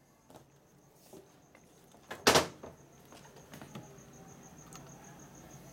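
Motorcycle brake caliper being handled on a rag-covered lift table: one sharp clack about two seconds in, with a few faint clicks of handling over a low steady hum.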